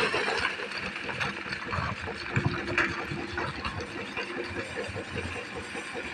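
Excavator's diesel engine running steadily with a fast even pulse, with a few short sharp knocks over it.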